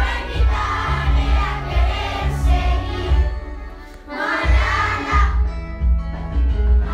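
A song sung by several voices together over an accompaniment with a strong bass line. The singing breaks off briefly about four seconds in, then comes back.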